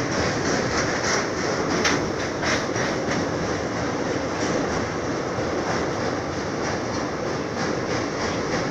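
Train running on rails: a steady rumble with the wheels clicking over rail joints, the clicks clustered in the first few seconds.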